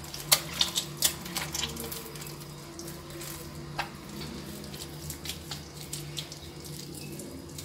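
Wet hands pulling and shaping very soft, sticky bread dough: wet slaps and squelches, thickest in the first couple of seconds, then softer ones, over a steady low hum.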